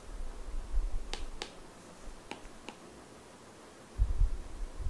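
Stylus tapping on a tablet screen during handwriting: four sharp clicks spread over a couple of seconds, then a low thud near the end.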